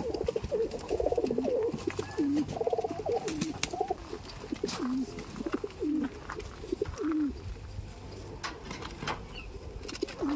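Domestic pigeons cooing in an aviary, many short overlapping coos throughout, with a few sharp clicks in between.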